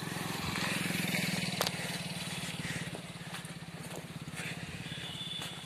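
Motorcycle engine running at low speed as it passes close by, loudest about a second in and then fading away.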